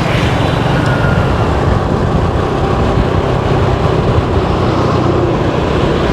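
Steady road noise of a motorbike ride through traffic: the bike's engine running and wind rushing over the microphone, with no distinct events.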